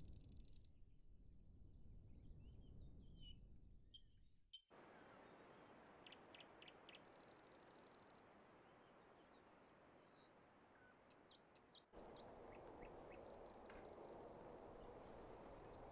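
Near silence: faint background noise with a few short, faint high chirps.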